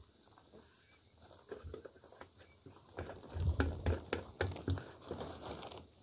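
Footsteps on dry leaves and twigs: a run of irregular knocks and crackles that grows louder in the second half.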